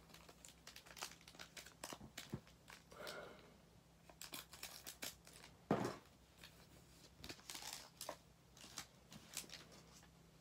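Faint tearing and crinkling of a foil trading-card pack wrapper being opened, with many small crackles and clicks as the wrapper and cards are handled; one louder crackle about halfway.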